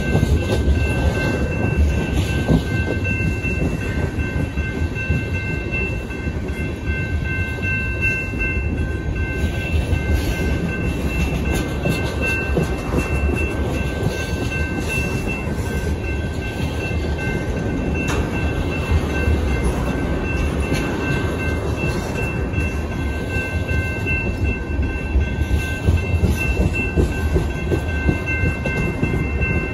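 Tank cars of a freight train rolling steadily past at close range: a continuous rumble of steel wheels on the rails with irregular clacks. A faint, steady high-pitched whine runs alongside.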